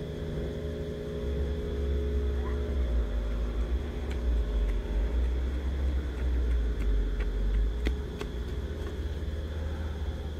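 A low, steady rumble of background noise, with a few faint clicks in the later part.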